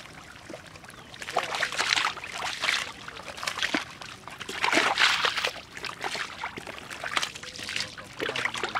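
Wet mud and muddy water sloshing and squelching in uneven bursts as gloved hands and a bowl scoop through shallow mud.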